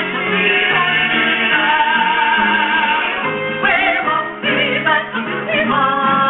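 Singing with musical accompaniment, a voice holding long, wavering notes.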